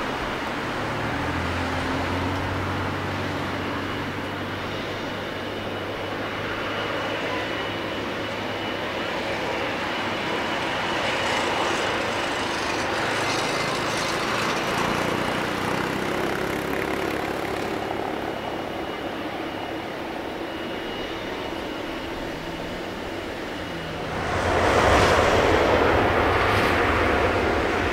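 Boeing 777-200ER airliner taxiing, its jet engines running with a steady rushing hum and a thin high whine. About four seconds before the end a louder, fuller rush comes in.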